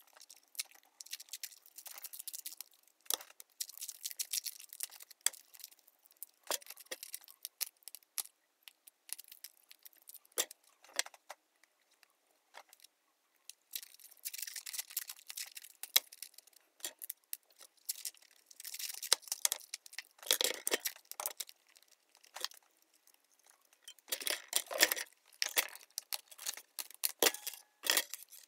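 Masking tape being pulled off its roll and wrapped around a wooden stick, crackling in repeated spells a second or two long, with short clicks and knocks from handling the stick and brush in between.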